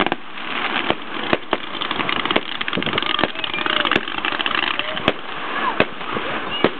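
Aerial fireworks exploding: continuous dense crackling from bursting shells, with a sharp bang every second or so.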